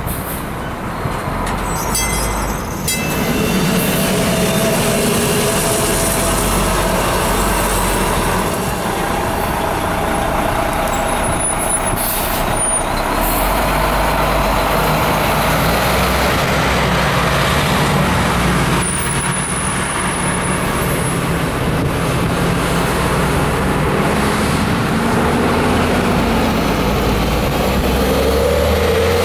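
Large diesel buses driving past close by, their engines running over steady road noise. At the start, a PCC streetcar is pulling away.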